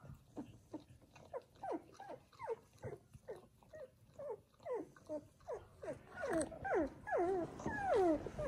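Newborn Samoyed puppy crying: a steady run of short, high squeaks, each falling in pitch, about two to three a second. In the last couple of seconds they grow louder and longer into wavering wails.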